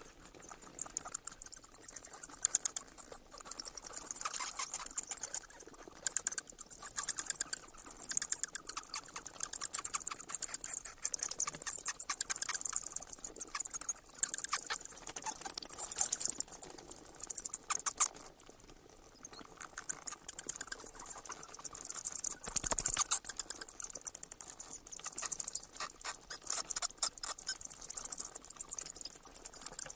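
Bats squeaking and chittering: rapid trains of high-pitched clicks and squeaks that come in bouts of a few seconds, with brief lulls between them.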